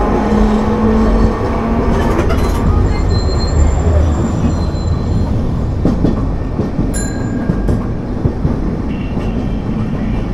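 Nagasaki Electric Tramway streetcar heard from inside as it runs along street track: a steady rumble of wheels on rail with motor hum that fades about a second and a half in, and a few faint high wheel squeals in the middle.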